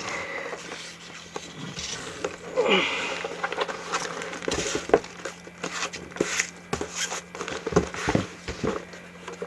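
Shipping packaging rustling and crinkling, with scattered knocks and scrapes, as a speaker is pulled out of its packing.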